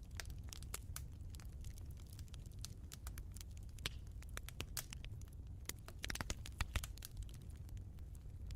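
Wood fire crackling in a fireplace: irregular sharp pops and snaps over a low, steady rumble of burning, with a quick run of louder pops about six seconds in.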